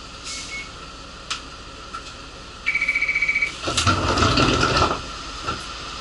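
An electronic warning buzzer on a city bus beeps rapidly for about a second, then a loud burst of hissing compressed air is released from the bus for about a second. Under both, the bus hums steadily at idle.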